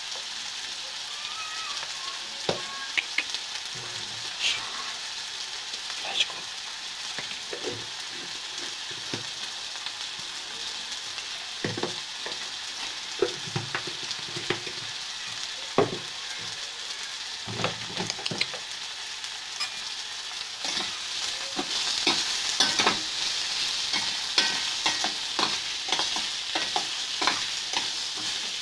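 Chopped onion, tomato and potato with turmeric and red chilli powder frying in oil in a steel pot: a steady sizzle, with a spoon clicking and scraping against the pot now and then. The sizzle grows louder and the clicks come more often about two-thirds of the way in, as the vegetables are stirred.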